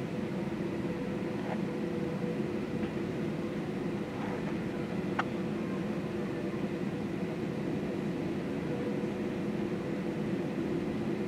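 Steady jet-airliner cabin noise on the ground before takeoff: engines at idle and the air-conditioning hum, heard from inside the cabin. A single short click about five seconds in.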